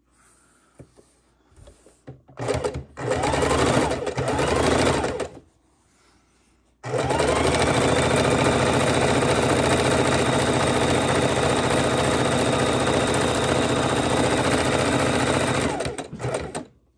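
Domestic electric sewing machine stitching a seam through layered fabric: a short run of about three seconds, a brief pause, then a steady run of about nine seconds that stops near the end.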